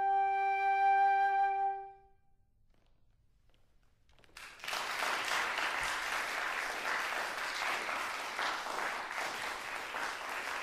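Two flutes hold the final note of a baroque suite movement, which dies away about two seconds in. After a couple of seconds of silence, the audience breaks into steady applause.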